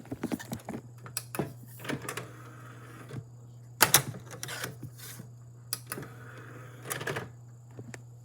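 Irregular clicks and taps over a steady low hum; the loudest is a sharp click about four seconds in.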